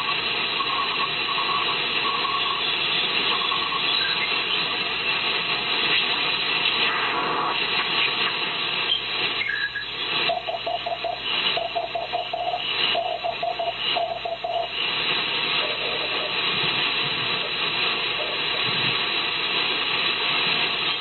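Elecraft KX3 receiver audio on the 6-meter ham band: a hiss of band noise with raspy, distorted Morse code (CW) notes, the rasp caused by auroral backscatter propagation. A higher CW note keys on and off near the start, and a lower one keys for about five seconds from roughly ten seconds in.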